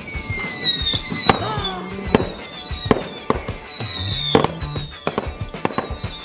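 Fireworks going off in a rapid series of sharp bangs and cracks, with high whistles that slide slowly down in pitch. Background music with a bass line plays underneath.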